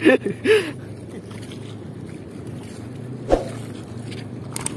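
Steady low rumble of riverside wind and water, with a few brief voices in the first moment and a single short knock about three seconds in.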